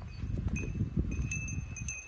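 Strong wind buffeting the microphone with a low rumble. Over it, a small metal bell jingles again and again, at uneven intervals.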